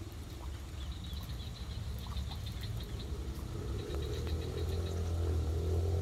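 Rapid trains of high chirping animal calls repeating through the clip, over a steady low rumble that grows louder near the end.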